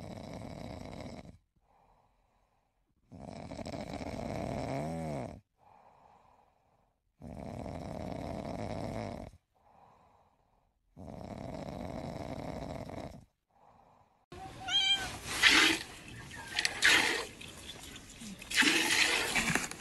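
A man snoring in long, regular breaths, one loud snore about every four seconds with a faint out-breath between. About 14 seconds in, a cat meows loudly several times.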